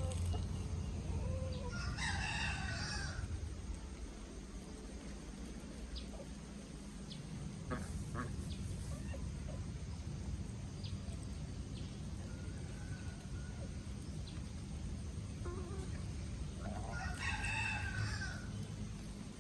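A rooster crowing twice, once about two seconds in and again near the end, with scattered soft clucks and chirps between the crows over a steady low hum.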